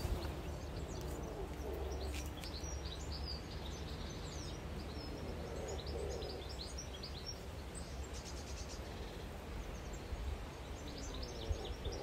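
Small birds chirping and twittering on and off, over a steady low rumble of outdoor background noise.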